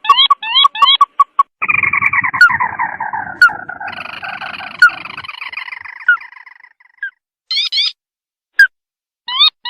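Ruddy-breasted crake call, loud and clear, played as a trapping lure. A few quick rising notes open it, then a long descending trill runs for about five seconds, cut by sharp single notes about once a second. Short runs of rising notes return near the end.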